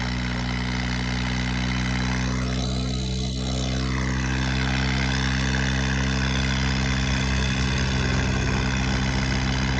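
Tractor diesel engines running steadily under load, pulling against each other in a tug-of-war.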